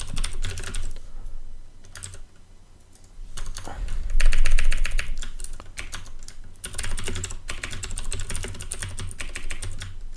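Computer keyboard typing in runs of rapid keystrokes, with a short pause about two seconds in. The loudest, fastest run comes about four seconds in.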